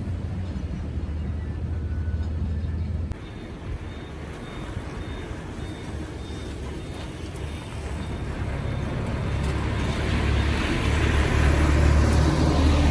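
Heavy diesel dump trucks on a dirt road. A truck's engine drops away about three seconds in, then another loaded dump truck comes up and gets steadily louder, its engine and tyre noise passing close near the end.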